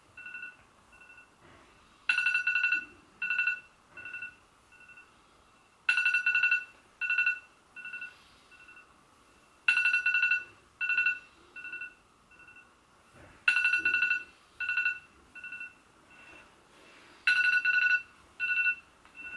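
Smartphone alarm tone ringing: a loud trilling beep followed by a few fading echo beeps, the pattern repeating about every four seconds, five times over. It is a wake-up alarm going off beside the bed.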